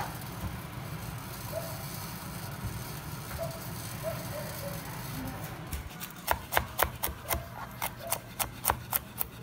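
A steady low hiss and hum, then from about six seconds in a kitchen knife chopping garlic on a plastic cutting board: sharp knocks about three or four times a second.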